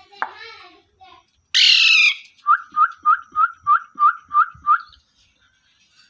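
Indian ringneck parakeets calling: one loud, harsh screech about a second and a half in, then a run of about eight short, sharp calls, roughly three a second, that stop about a second before the end.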